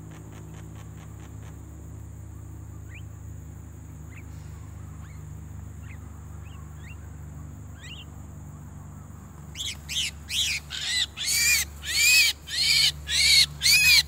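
A few faint short bird chirps, then from about two-thirds in a Javan myna calling loudly over and over, about two calls a second, getting louder. The calls fit a myna that has been caught on a glue stick and is being held in the hand.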